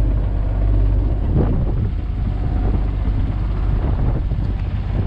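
Boat engine running steadily with a low hum.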